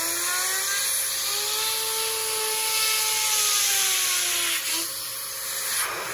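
Rechargeable electric air duster blowing a strong jet of air into a graphics card's heatsink and fans: a steady rush of air with a motor whine that rises a little and then falls off about five seconds in.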